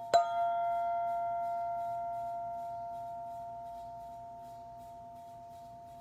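Black ZenTube struck once, its clear tone and overtones ringing on and fading slowly.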